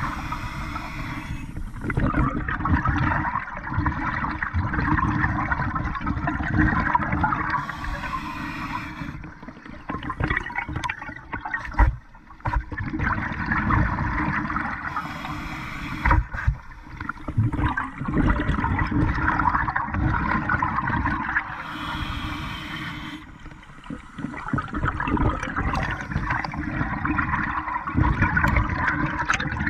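Scuba diver breathing underwater through an open-circuit regulator: a brief hiss about every seven seconds, then a long bubbling rush of exhaled air between them.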